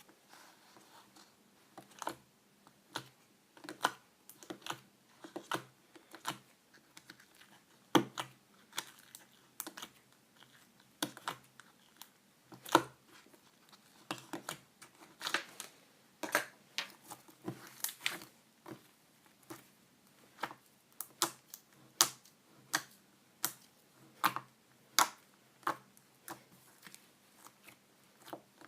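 Clear slime being pressed and poked by hand, giving sharp clicking pops at an irregular pace of about one or two a second.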